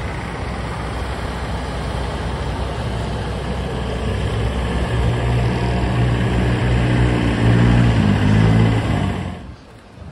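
Tractor engine running with a steady hum that grows louder over the middle of the stretch, over a constant wash of background noise; it all cuts off abruptly about nine and a half seconds in.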